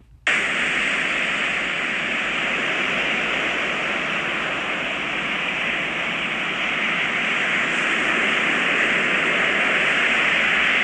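A steady rushing noise, a dubbed-in sound effect, cutting in suddenly after a brief silence and holding evenly throughout.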